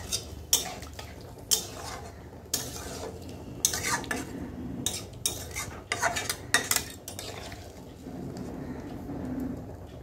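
Metal spoon stirring a watery vegetable curry in a metal kadai, scraping and knocking against the pan's sides in irregular strokes. The clinks thin out after about seven seconds.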